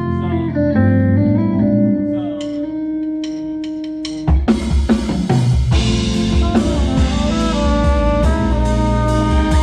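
A live band playing: held chords on pitched instruments for about four seconds, then the drum kit and bass come in together and the full band plays a groove with steady drum hits.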